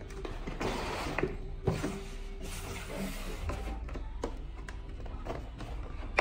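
Background music over the rustling and crackling of a cardboard box being opened and a clear plastic blister tray being handled, with scattered sharp clicks and taps.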